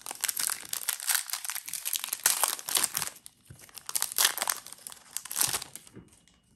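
A foil Yu-Gi-Oh booster pack wrapper crinkling and tearing as it is ripped open by hand, in irregular crackles that stop shortly before the end.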